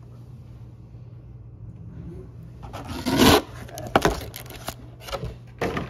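Cardboard box packaging and its contents being handled: a scraping rub about three seconds in, followed by a few short sharp taps and knocks.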